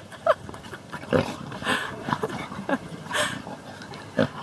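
A bulldog puppy and white tiger and lion cubs play-fighting, giving a string of short animal calls, about seven in four seconds, the loudest near the end.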